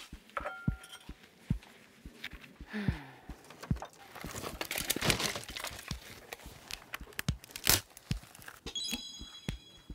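Footsteps and the rustle and clatter of an armful of dry kindling being carried and handled, with scattered knocks of wood on wood. The rustling is densest about four to six seconds in.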